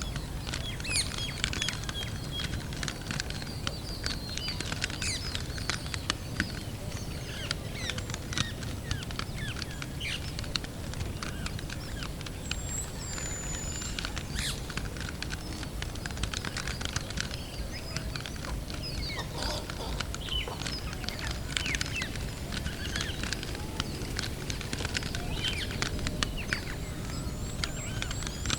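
Many small birds chirping and twittering in short, overlapping calls, over a steady low rumble.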